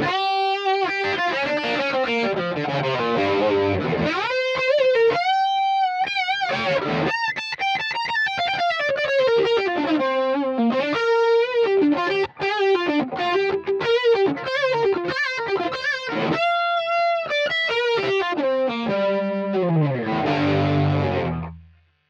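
Swing P-2S electric guitar played with overdrive through a Line 6 POD HD500 multi-effects unit: a fast lead solo of quick note runs with a few held notes wavering in vibrato. Near the end a run falls to low notes and the playing stops suddenly.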